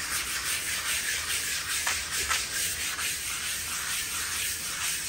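Sponge scrubbing a kitchen work surface in regular back-and-forth strokes: a steady, scratchy rubbing hiss.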